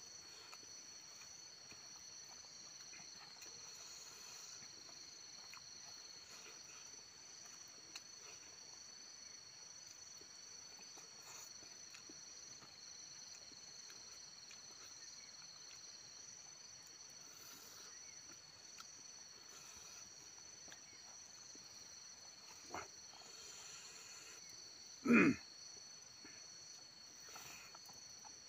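Insects chirring steadily at a high pitch, two overlapping tones that never let up. A single short, loud sound stands out near the end, with a fainter one a couple of seconds before it.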